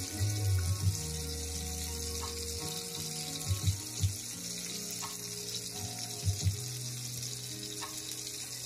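Food sizzling in a miniature frying pan, a steady hiss, with a few light clicks about midway and again later. Background music with low held notes plays throughout.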